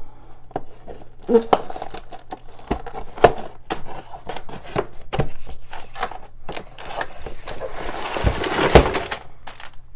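Cardboard LEGO set box being opened by hand: the end flap and tabs are pried and pulled, giving a string of sharp clicks and taps. Near the end the box is tipped up, with a longer rustling scrape and one loud knock.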